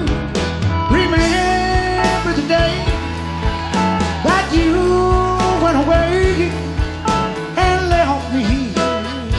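Live Tex-Mex country band playing with drums, bass and a lead melody whose notes bend and waver, with no lyrics sung.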